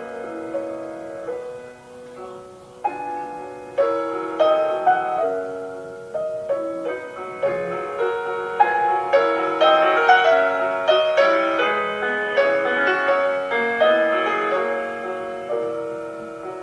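Piano playing a classical piece: single notes and chords struck and left to fade, quieter about two seconds in, then a run of more frequent notes.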